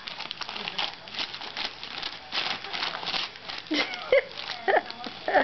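Glossy magazine pages rustling and crinkling as a baby grabs and tears at them. Near the end the baby gives a few short, loud vocal squeals.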